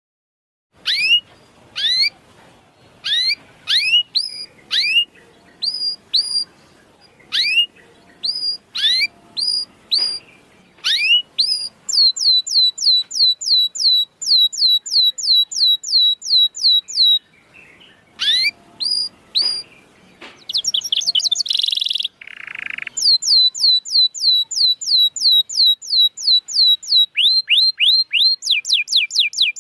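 Canary calling and singing: a series of sharp rising chirps, then fast rolling trills of one repeated note at about four to five a second. A short burst of hiss cuts in once, a little over two-thirds of the way through.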